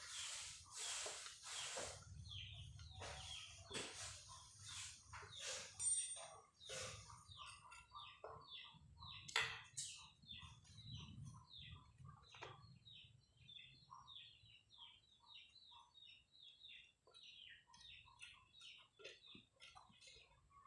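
Small birds chirping quickly and repeatedly, faint. In the first half there are also several sharp clicks and knocks.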